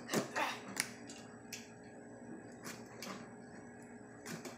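Box cutter blade slicing through the tape and cardboard of a shipping box: a string of short scratchy clicks at uneven intervals as the blade is drawn along.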